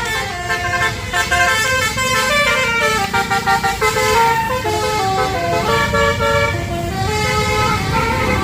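A telolet bus horn: a set of tuned horns playing a quick melody of changing notes, one after another, over a steady low rumble.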